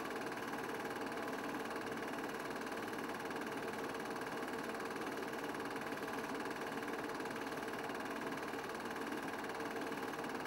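Steady mechanical whirring that never changes in pitch or loudness, with two fixed hum tones: the running noise of a film projector during the transfer of silent cine footage, not the motorcycles in the picture.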